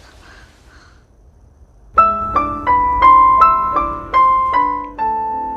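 A simple piano melody of single notes struck one at a time, about three a second, starting about two seconds in after a quiet opening. It is a rough, cheap-sounding piano line pressed in by hand: each note was recorded separately and the notes were spliced together into the tune, not played straight through.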